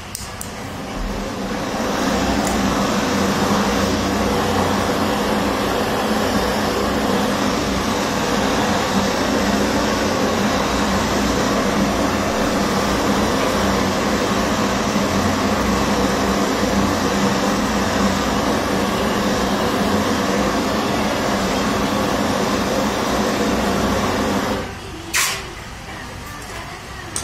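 Hand-held gas torch flame rushing steadily as it heats a metal ring on a soldering block. It swells up over the first couple of seconds and cuts off suddenly near the end, followed by a couple of light clicks.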